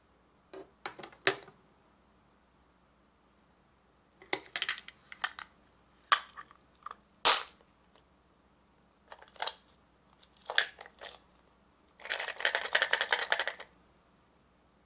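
Hard plastic capsule halves and small charms with metal rings being handled: scattered clicks and clacks, then a dense clattering rattle lasting about a second and a half near the end.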